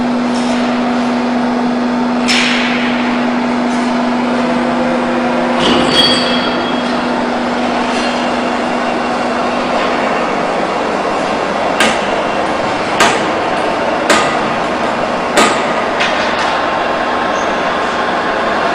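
The stainless-steel vacuum homogenizing emulsifier's lid-lift drive runs with a steady hum as the lid is raised, stopping about ten seconds in, over constant machinery noise. Several sharp metallic clanks follow, most of them in the second half.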